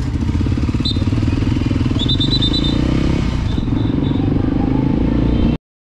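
Motorcycle engine running steadily at low speed, heard from the rider's seat, with a brief high trill about two seconds in. The sound stops abruptly near the end.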